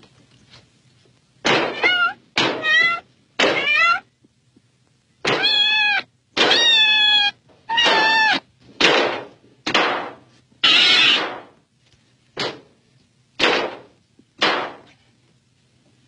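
A cat meowing about a dozen times in quick succession, short mews mixed with a few longer drawn-out yowls, starting about a second and a half in. Occasional knife thunks on a cutting board.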